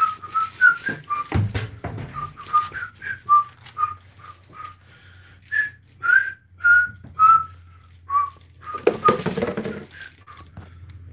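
A man whistling a tune, a run of short notes, with a brief clatter of handling noise about nine seconds in.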